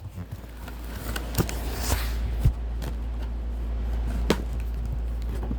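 Cardboard packaging being handled and opened: a few sharp knocks and a brief scrape, over a steady low rumble.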